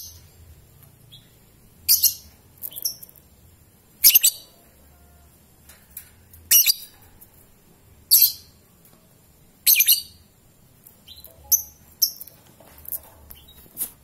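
Fischer's lovebirds giving short, shrill, high-pitched chirps, about ten in all, spaced a second or two apart with some in quick pairs.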